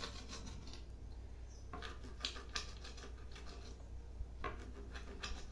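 Knife chopping beef tripe on a cutting board: a few scattered taps and scrapes of the blade, over a low steady hum.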